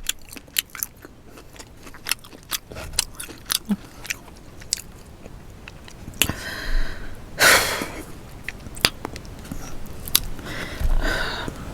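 Close-miked eating of boiled crawfish: many sharp clicks and cracks from the shells being peeled and bitten, with chewing. A louder noisy rush about seven seconds in.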